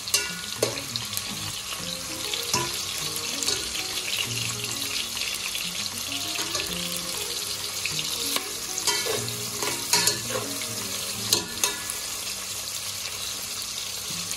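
Sliced onions sizzling as they fry in hot oil in a steel pot, being cooked toward brown. A metal spatula stirs them, giving scattered scrapes and clicks against the pot.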